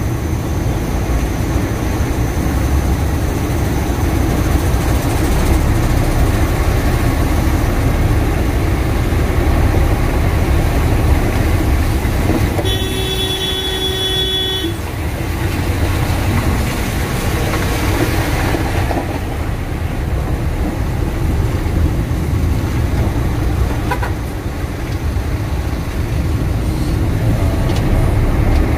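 Steady engine and road noise inside a moving truck's cab on a wet road. A vehicle horn sounds once for about two seconds near the middle.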